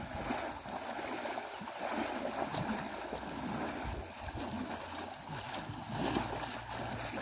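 Shallow muddy water splashing and sloshing as people wade through it, pushing a mosquito net along to catch small fish.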